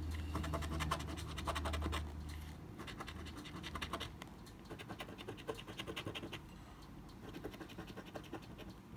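A coin scraping the latex coating off a paper lottery scratch card in quick back-and-forth strokes, in short runs with brief pauses. A low hum sits under the first two seconds or so.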